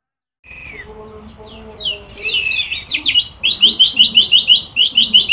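Kecial kuning (a yellow white-eye) singing in its cage, starting about half a second in. The song builds over the first couple of seconds into a fast, loud run of high chirping notes, about five a second: the rapid-fire 'nembak' style of song.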